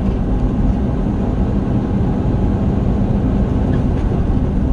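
Semi truck's diesel engine and tyre noise heard inside the cab while driving: a steady low drone.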